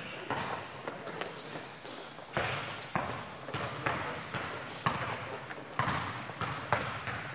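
A basketball thumping on a hardwood-style gym floor in repeated, irregular bounces, with short high sneaker squeaks from players on the court, echoing in a large gym.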